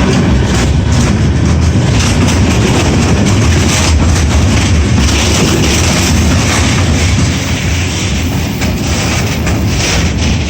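Container freight train rolling past close by: a loud, steady rumble with the wheels clacking over the rail joints.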